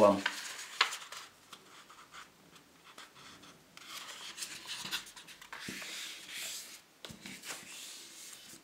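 A sheet of A4 paper being folded in half and the fold pressed down with the fingers: soft paper rubbing and rustling strokes, with a few light taps.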